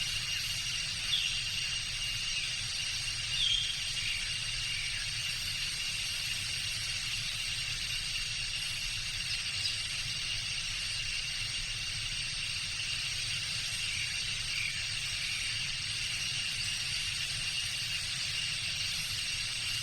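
Tropical jungle ambience: a steady high-pitched drone and hiss with a constant thin tone running through it, over a low rumble. A couple of short chirps stand out about one and three and a half seconds in.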